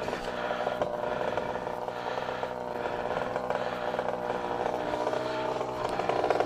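Small dirt bike engine running at a fairly steady speed while being ridden.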